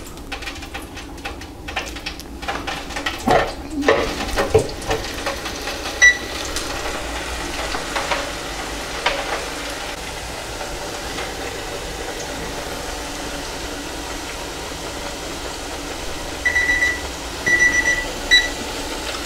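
Onion bhajis deep-frying in oil at 160 °C, a steady sizzle, with a few handling clicks in the first seconds. A digital kitchen timer beeps once about six seconds in, then three times near the end, marking the three minutes after which the bhajis are turned, before its button is pressed.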